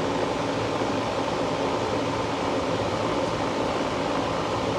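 Steady, even whirring hum of a running fan.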